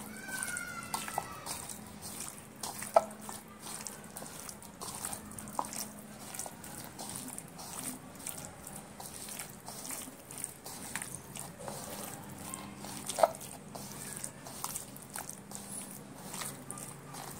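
A hand squeezing and mixing raw chicken pieces in a thick wet spice-and-curd marinade in a bowl: continuous soft wet squelching, with two sharper clicks about three seconds in and near the thirteenth second.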